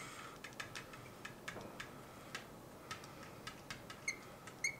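Marker tip writing on a glass lightboard: a run of faint, irregular light ticks as the letters are stroked, with a couple of short high squeaks near the end.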